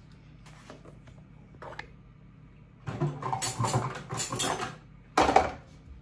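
Dishes and plastic containers clattering and rattling as they are set into a dishwasher's wire rack. The rattling starts about halfway through and goes on for a couple of seconds, followed by one sharper knock near the end.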